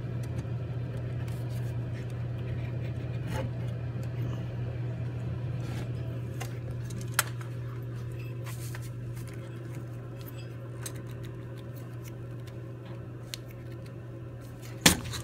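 Grundfos Magna3 circulator pump's motor head being handled and pulled away from its pump housing: scattered small clicks and scrapes, a sharp click about seven seconds in and a louder knock near the end, over a steady low hum.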